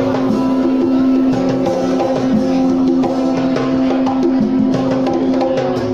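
A live guitar and drum-kit duo playing a fusion piece: guitar over a steady drum beat, with a low note held throughout.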